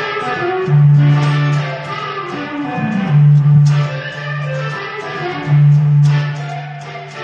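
Electric guitar being played: low notes held about a second at a time, with higher notes sounding above them.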